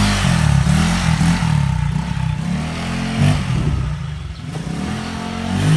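Honda Click scooter's single-cylinder four-stroke engine breathing through a JVT aftermarket exhaust pipe, revved up and down repeatedly, its pitch rising and falling several times.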